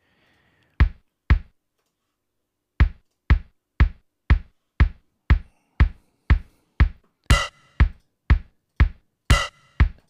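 Drumulation sampled 1980s drum machine, the UVI emulation of the E-mu Drumulator, playing a basic kick drum. Two lone hits come first, then a steady kick on every beat, about two a second at 120 BPM. From about seven seconds in a snare joins about once a bar as steps are added to the pattern.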